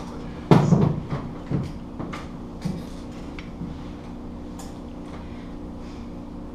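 A metal-framed chair is set down on the wooden stage with a loud clatter about half a second in, followed by a few light knocks and steps as someone sits on it, over a steady low room hum.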